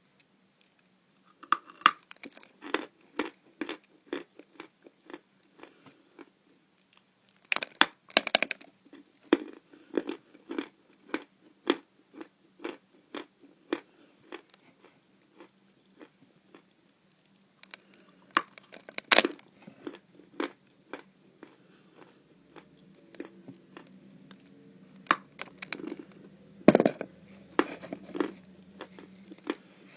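Lumps of natural chalk being bitten and chewed close to the microphone, giving crisp, irregular crunches in clusters, with a few louder bites.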